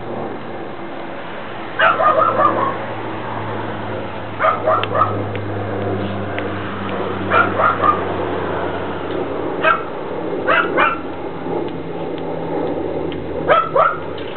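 A dog barking and yipping in short bursts, about every two seconds, over a steady low hum.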